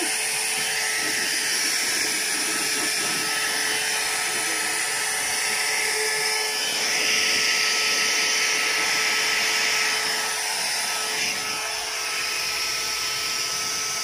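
Handheld electric air blower running steadily: a rush of air with a faint whine, drying refrigerator parts that may have got wet.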